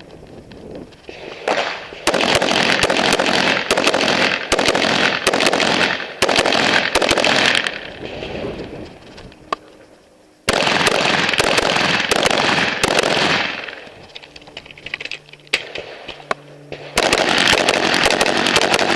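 AR-15 rifle in .223/5.56 fired in quick strings of sharp shots, with stretches of loud rushing noise between the strings and two quieter pauses with only scattered shots.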